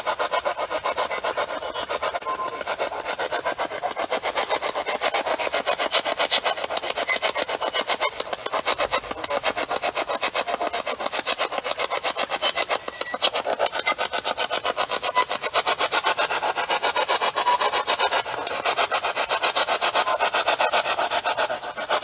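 Heavy rain pouring down, heard from under a shelter: a dense, fast, steady patter of drops.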